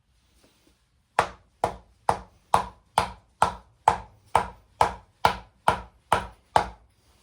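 A hammer striking a wooden block about a dozen times in a steady rhythm, roughly two blows a second, to drive a seized piston down in a fire-damaged Kubota V2203 diesel block.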